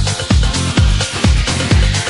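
Latin house dance music with a steady four-on-the-floor kick drum, about two beats a second, under a bass line and bright hi-hat percussion.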